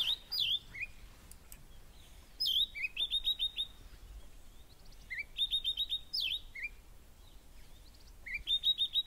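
Small songbirds singing: a phrase of a slurred downward whistle followed by a quick run of five or six short high notes, repeated three times, with other brief chirps between.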